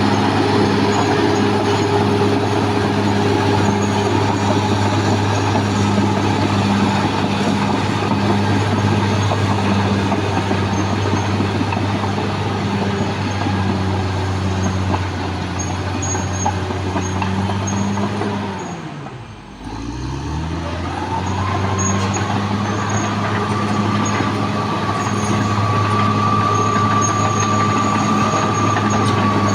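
Caterpillar D6R XL bulldozer's diesel engine running with a steady hum. About two-thirds through, the engine note falls and its level dips sharply, then it picks back up, and a steady high whine sets in and holds to the end.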